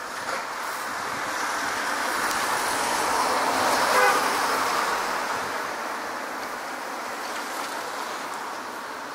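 A vehicle passing by: a rushing noise that builds over about four seconds, peaks with a brief tone, then fades away.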